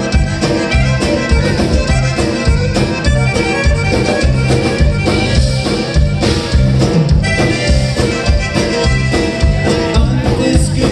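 Live conjunto band playing an instrumental passage: button accordion over guitars, electric bass and drums with a steady beat.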